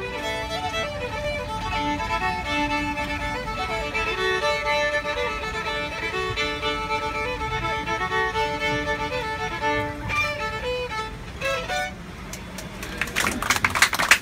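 A fiddle played live in an airliner cabin, a fast tune of quick notes over the steady low hum of the cabin. The tune ends a little before the end, and a burst of clapping follows, louder than the playing.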